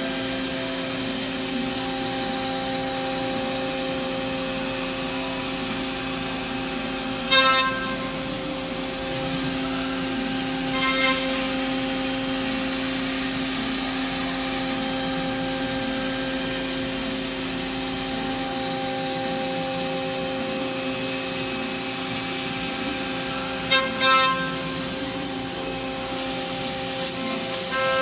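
KOMO XL 524 CNC router spindle running steadily as it machines an aluminium extrusion, a steady whine throughout. A few brief, louder squeals of the cutter in the metal break in about 7 and 11 seconds in, twice around 24 seconds and again near the end.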